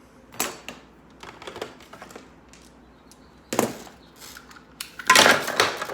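Hand tools being set into a plastic bucket: a few separate knocks, then a loud rough clatter lasting about a second near the end.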